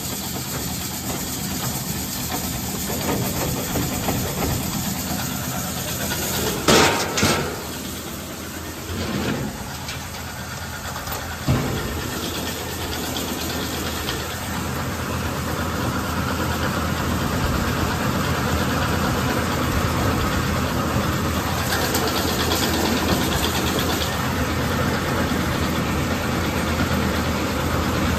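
Tractor engine and grain auger running steadily while corn is unloaded, a few sharp metal knocks about a quarter of the way in and one more shortly after, and the running a little louder in the second half.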